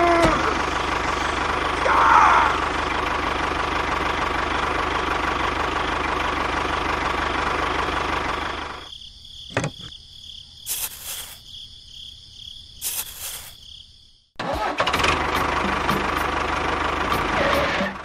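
Tractor engine running steadily. About halfway through it cuts out, leaving a quieter stretch with a few short noisy bursts, and the engine sound comes back near the end.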